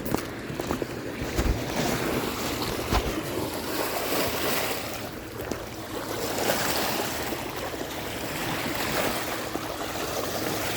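Lake waves washing on the shore, swelling and fading every couple of seconds, with wind buffeting the microphone.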